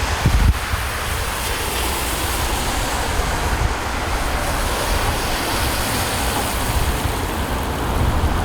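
Wind buffeting the microphone, a gusty low rumble over a steady outdoor hiss of storm and street noise, with a brief louder buffet right at the start.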